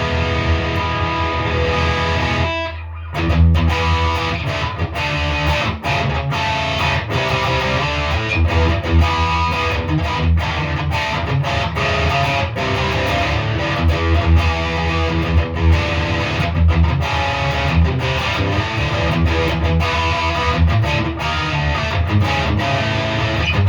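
Gibson Les Paul 50s Standard electric guitar with P90 pickups played through an amp with its volume knobs rolled down and its tone knobs at 10, giving a cleaned-up tone. Picked and strummed chords and notes play continuously, with a short break about two and a half seconds in.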